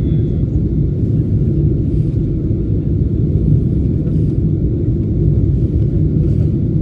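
Steady low rumble of cabin noise inside a Boeing 747-8 airliner: engine and airframe noise heard from a passenger seat.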